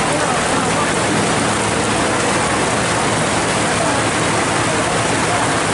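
Heavy downpour: rain hissing steadily on the road, mixed with the rush of floodwater running across the tarmac.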